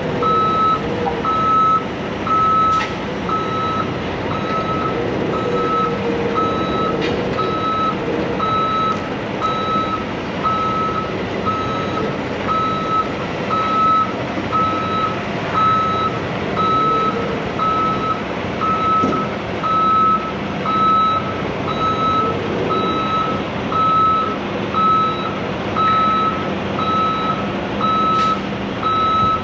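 Semi truck reversing: a backup alarm beeps steadily about once a second over the running diesel engine as the rig backs a flatbed trailer up to a loading door.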